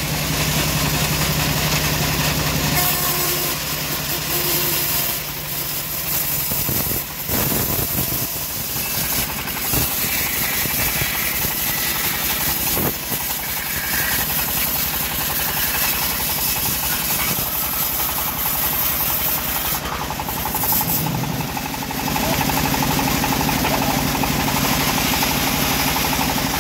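A homemade bandsaw sawmill runs steadily, its blade ripping lengthwise through a rotten teak log. The sound changes about three seconds in and again near 22 seconds.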